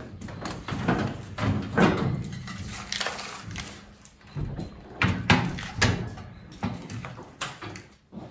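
Metal grease filters being slid out of a stainless steel extractor hood and handled, giving several irregular clunks and scrapes of metal on metal.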